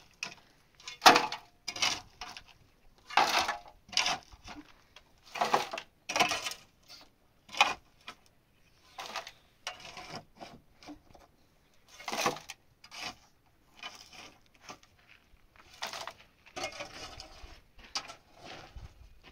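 Loose earth and stones being scraped up from a dirt floor and tossed into a metal basin, in irregular scrapes and clatters about every second or two.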